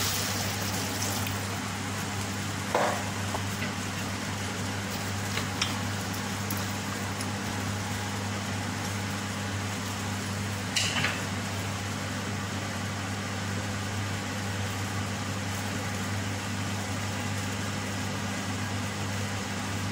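Pot of vegetables and water heating on the stove: a steady hiss over a low, even hum, with a few faint clicks.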